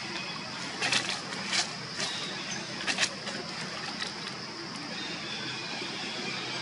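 Steady outdoor background hiss with a high, even drone, broken by a few short sharp clicks or snaps about one second in and again around three seconds in.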